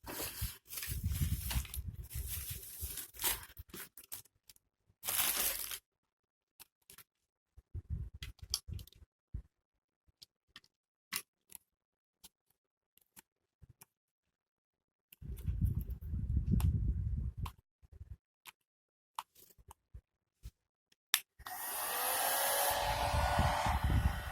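Clicks and dull bumps of handling, then near the end a Philips HP8126 hair dryer switches on: a steady rush of blowing air with a motor whine that quickly rises in pitch and then holds.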